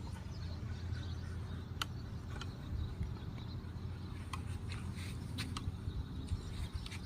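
Steady low engine hum of construction machinery, with a scatter of short light clicks and taps over it.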